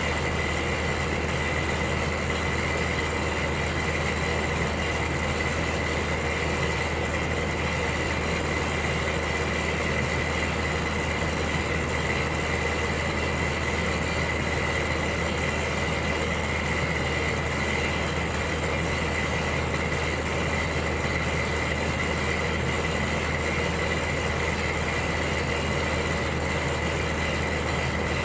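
Electric heater running with a steady hum and an even rushing noise, with a faint steady high whine over it.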